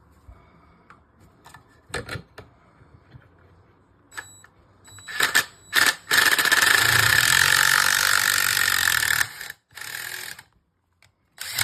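Cordless DeWalt drill driving the Impact Connect PEX pinch clamp attachment to crimp a pinch clamp. First a few handling clicks, then two short trigger blips, then about three seconds of steady running with a high whine as the clamp is squeezed shut, then two more short bursts.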